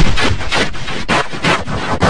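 Loud, harsh distorted noise, dense and crackling, pulsing several times a second.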